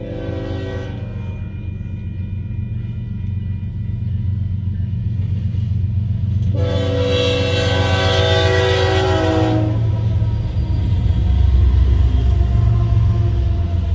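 Union Pacific freight diesel locomotives approaching and passing a grade crossing, sounding the air horn: a brief note in the first second, then a long blast of several tones about six and a half seconds in that lasts about three seconds. Under the horn is the low rumble of the engines, growing louder as the locomotives pass near the end.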